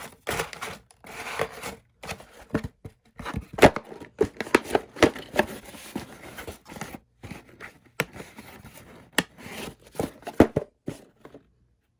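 Cardboard box being pushed, bent and torn by hand: irregular rustling and scraping with many sharp knocks, pausing briefly near the end.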